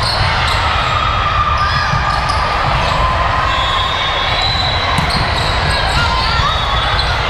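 Steady low rumble of room noise with faint voices in the background, and one sharp click about five seconds in.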